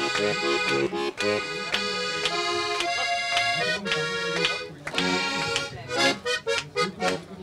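Steirische Harmonika, an Austrian diatonic button accordion, playing a tune: sustained chords over a repeating bass pattern, turning to short, choppy notes near the end.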